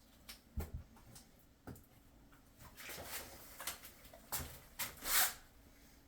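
Wall tiles being handled and set: a few light knocks and taps with short scraping sounds, the loudest scrape about five seconds in.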